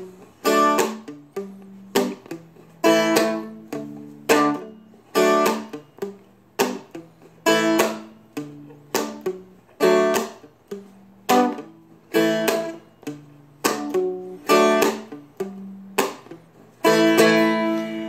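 Seagull Merlin, a small four-string diatonic dulcimer-style instrument, strummed with a pick in a steady repeating rhythm. Each downstroke lands as a muted percussive hit among the ringing chords.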